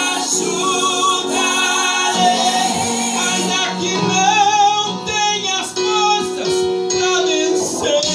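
Gospel song: a singer's voice with vibrato over instrumental accompaniment.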